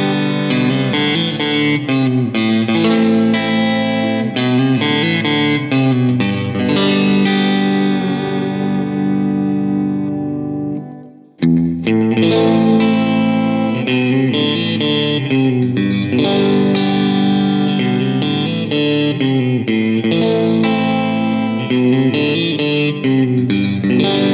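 Fender American Ultra Luxe Vintage electric guitar played through an amp with effects, strumming chords and picking notes. About ten seconds in, a chord rings out and fades, then cuts off sharply before the playing starts again.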